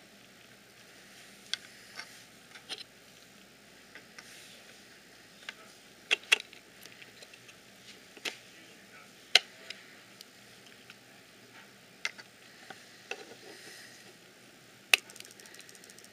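Plastic impeller and housing of a Kestrel pocket weather meter clicking and tapping as the impeller is handled and pressed into its seat by hand. The sharp clicks come at irregular moments, with the loudest about halfway through and again near the end.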